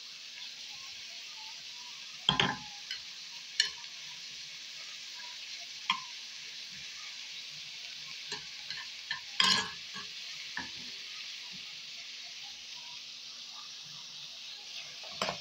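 Chopped red onions sizzling in hot oil in a stainless-steel pot: a steady frying hiss. A few sharp knocks stand out, the loudest about two seconds in and near ten seconds.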